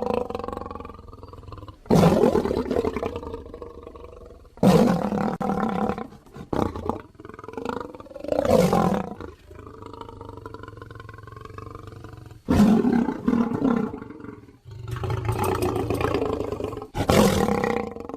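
Lion roars and growls, used as a Barbary lion sound effect: a run of loud roars, each cutting in abruptly every two to four seconds, with one that swells and fades about halfway through.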